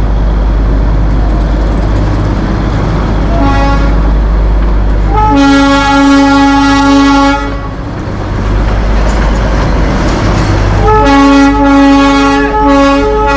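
Darjeeling Himalayan Railway toy train's locomotive whistle: a short toot, then a long blast of about two seconds, then from about eleven seconds in a series of blasts broken by brief gaps. Under it runs the steady rumble of the moving train.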